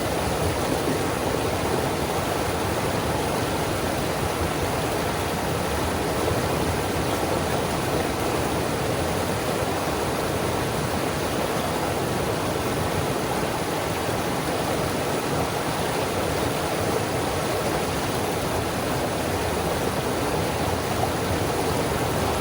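Rapids of a river rushing steadily, a loud, even roar of white water.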